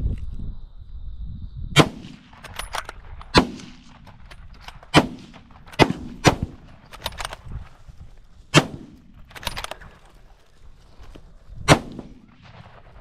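A string of rifle shots at feral pigs: about seven loud, sharp cracks spaced unevenly over ten seconds, with a few fainter ones in between.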